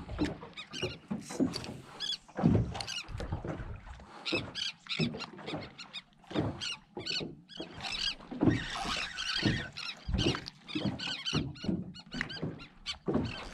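Small wind-driven waves lapping and slapping against a boat's hull in irregular splashes, several a second.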